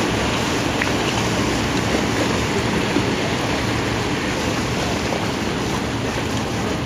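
Steady rushing of lake water churned up in the wake of a departing paddle steamer, with wind on the microphone.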